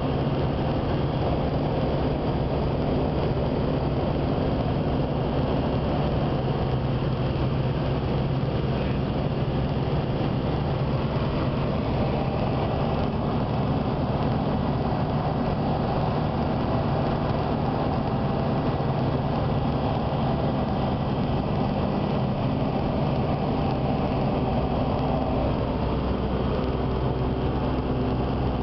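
Single-engine light aircraft's piston engine and propeller droning steadily in flight, heard from inside the cockpit with a constant rush of air noise.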